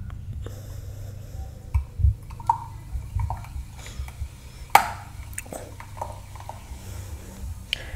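Small handling noises: scattered short clicks and taps, the sharpest a little under five seconds in, over a steady low hum.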